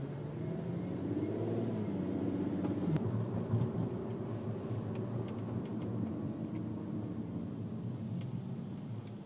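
Car engine and road noise heard from inside the cabin, the engine note rising as the car accelerates about a second in, then settling into steady driving; a few faint clicks.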